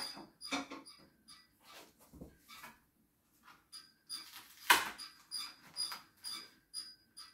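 Hands handling a large flat cardboard shipping box: a run of short scrapes and rubs on the cardboard, several with a thin high squeak, and one louder sharp scrape or tear a little before five seconds in.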